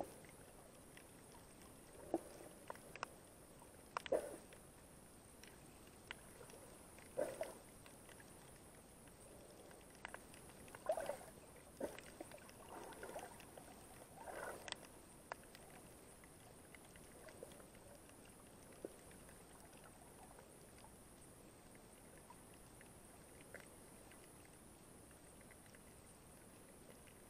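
Faint muffled underwater sound picked up by a Firefly 7S action camera in its waterproof housing: a steady low hiss with short swishes and knocks of moving water every second or two, thinning out in the second half.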